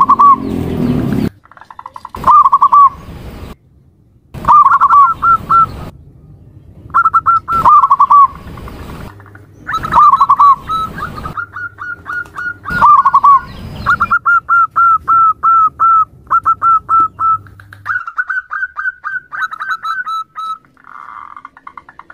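Zebra dove (perkutut) calls, presented as a female's: short groups of quick rolling coo notes with pauses between them. About two-thirds of the way through comes a longer, faster run of short clipped notes.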